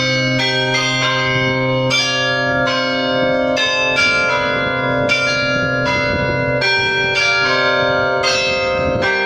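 Carillon bells of the Belfry of Bruges, very loud at close range, playing a tune. New notes are struck about twice a second and each rings on over a low bell tone that sounds throughout.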